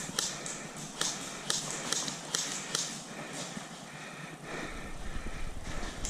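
Quick footsteps, about two steps a second, with a rustle on each step; they grow softer about halfway through.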